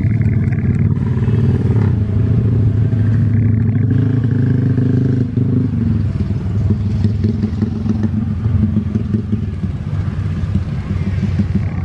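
Road traffic close by: engines of a bus and motorcycles running, steady at first and more uneven about halfway through as motorcycles pass.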